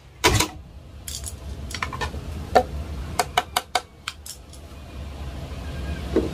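A series of short, sharp clicks and metallic clinks, about a dozen, bunched closely together a few seconds in, from small screws and hardware being handled while a cabinet door and handle are fitted.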